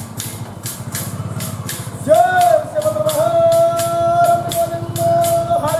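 A Haridasu's wooden hand clappers clacking in a steady rhythm, about four strikes a second. About two seconds in, his voice joins on one long held sung note.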